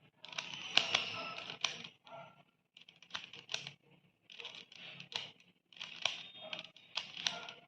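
Plastic triangle Rubik's puzzle being twisted by hand: spells of quick clicking and rattling as its layers turn, about four in a row with short pauses between.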